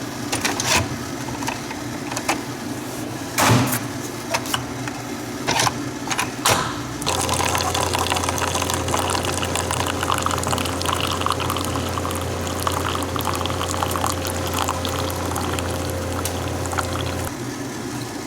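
Single-serve pod coffee maker brewing: a few clicks and knocks as it is loaded and closed, then about seven seconds in its pump starts humming steadily while coffee pours into the cup for about ten seconds, stopping shortly before the end.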